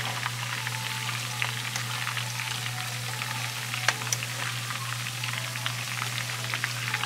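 Köfte (ground-meat patties) deep-frying in a pan of bubbling oil: a steady sizzle full of crackles, with one sharper pop about four seconds in, over a steady low hum.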